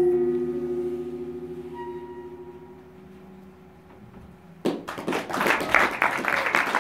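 A jazz band's held final chord, with saxophone, fading away over about four seconds. Then audience applause breaks out suddenly about two-thirds of the way in.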